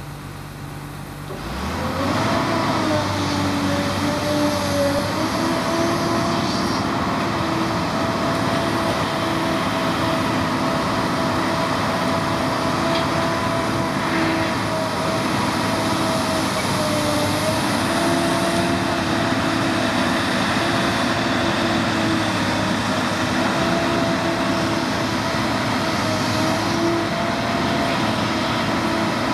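Excavator's diesel engine running steadily under work, with a whine whose pitch shifts slightly now and then; it comes up sharply about a second and a half in.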